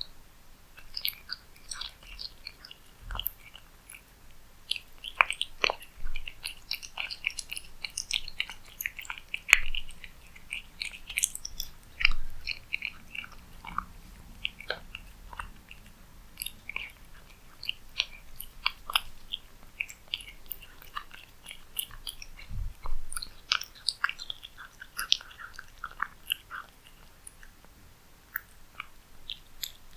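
Cat eating cat food close to the microphone: a dense, irregular run of chewing clicks and wet mouth smacks.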